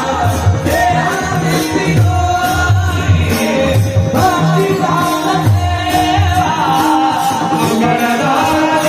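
Singing to music with a steady drum beat and bright jingling percussion like a tambourine.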